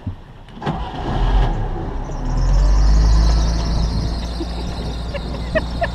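Sailboat's inboard engine started with the panel starter button: it cranks briefly, catches about two seconds in, and then runs steadily.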